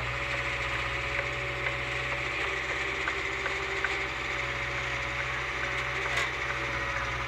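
Backhoe loader's diesel engine running steadily at an even pitch.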